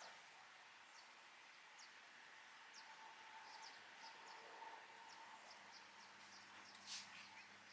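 Near silence: faint outdoor ambience with scattered faint, short high ticks and one slightly louder click near the end.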